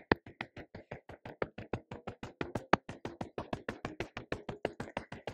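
Rapid, even fingertip tapping on the back of the head and neck, about eight light taps a second.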